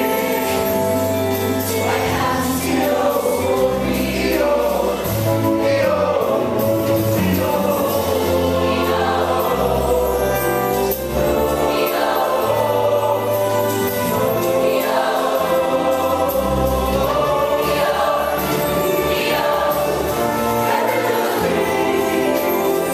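Show choir singing as a full mixed ensemble over instrumental accompaniment with a moving bass line, steady and loud throughout.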